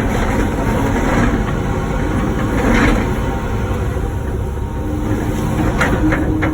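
Wacker Neuson ET145 excavator's diesel engine running steadily while working, with a few knocks and scrapes of the bucket against broken blacktop and concrete.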